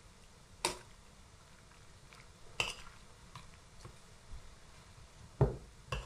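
A metal spoon knocking and clinking against a stainless steel pot while a thick cake filling is stirred and scooped: four short, sharp knocks spread out, the loudest and deepest about five and a half seconds in.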